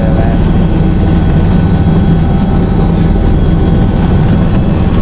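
Helicopter turbine engine and rotor running: a steady, loud noise heavy in the low end, with faint steady whining tones above it.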